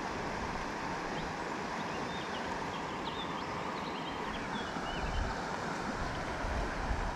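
Steady rush of a flowing river, with a few faint high chirps over it. Low gusts of wind buffet the microphone about five seconds in and again near the end.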